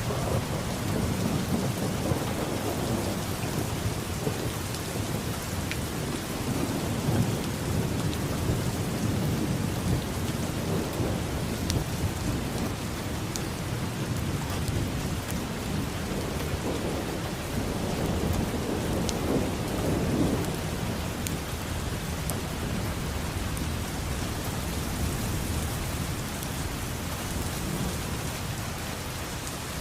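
Steady rain falling, with thunder rumbling in several long low rolls that swell and fade.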